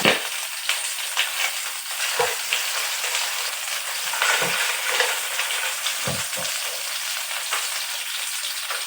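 Chicken wings sizzling as they pan-fry in hot oil, a steady hiss with a few short knocks against the pan.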